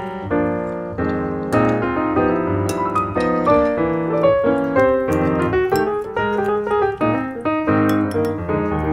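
Background piano music, a run of quick notes and chords.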